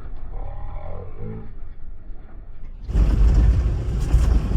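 Mahindra Bolero Neo N10 being driven: a low steady rumble, then about three seconds in a sudden jump to a much louder rumble and rushing noise.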